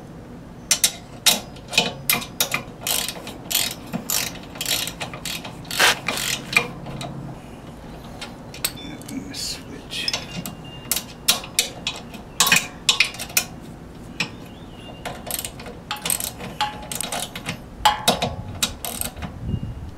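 Socket ratchet wrench clicking in quick runs of strokes as bolts are tightened.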